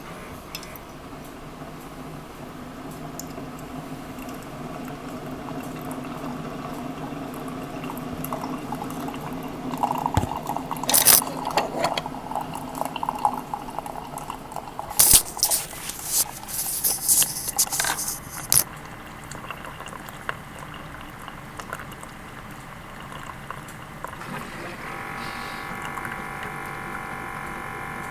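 Old Keurig single-cup coffee brewer running: a steady mechanical hum with liquid filling and pouring, a cluster of clicks and rattles in the middle, and a steady pitched whine near the end. These are the weird noises the seven-year-old machine makes when it starts, a sign of its worn state.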